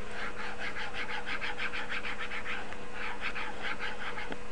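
Stylus scribbling rapidly back and forth on a tablet screen while shading in an area, a quick run of scratchy strokes about five a second, with a short pause about two and a half seconds in. A faint steady hum runs underneath.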